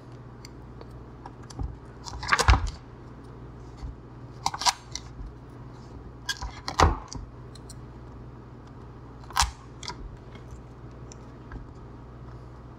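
Scattered short crackles and clicks as cells of EPP foam, loosened by a scalpel grid, are picked and torn out with a small pointed tool, over a faint steady hum.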